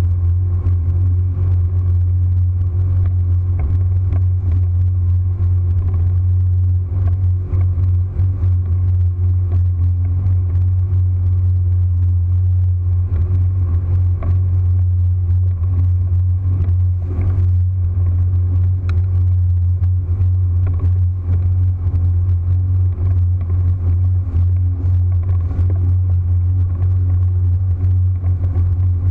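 Motorboat engine running steadily at speed: a loud, deep, even drone, with scattered knocks of the hull over the chop.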